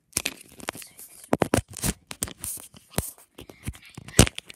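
Toy packaging handled right against the microphone: irregular crackles, scrapes and knocks of the box and wrapping, with one sharp knock about four seconds in.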